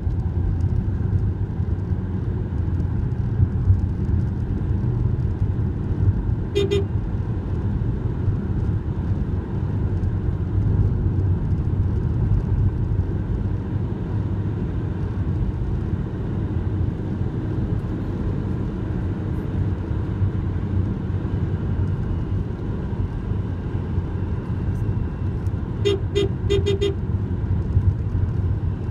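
Steady low engine and road noise inside a moving car's cabin, with one short horn toot about seven seconds in and a quick run of four short toots near the end.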